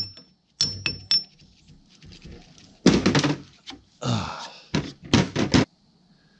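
Metal clinks and wooden knocks as a rusty hatchet head is knocked off its wooden handle with a claw hammer and the parts are handled on a metal-topped bench. There are two ringing taps in the first second, a loud knock about three seconds in, a brief scrape, and a quick run of four or five knocks near the end.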